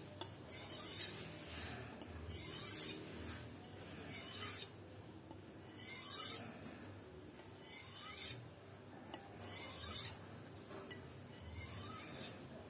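A Pirge butcher knife's blade drawn along a Maestro Masat Mercury Steel Balkan sharpening steel: seven strokes, about one every two seconds, each a short scraping rasp of steel on steel. The sound is smooth, which suggests a fine-cut steel.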